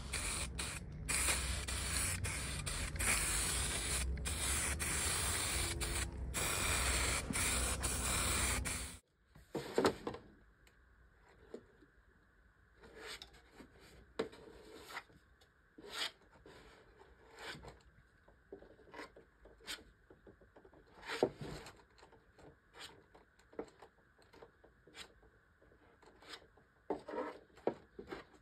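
Aerosol spray can hissing in short repeated bursts over a plastic motorcycle fairing, stopping abruptly about nine seconds in. After that, the quiet scattered scrapes of a plastic spreader working body filler across the fairing.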